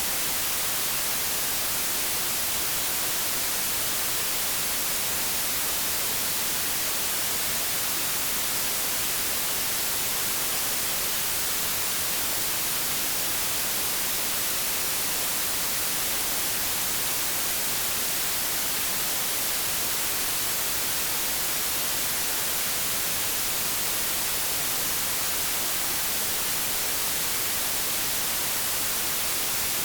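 Steady white-noise static, an even hiss with most of its energy in the high frequencies and no tones or clicks, unchanging throughout.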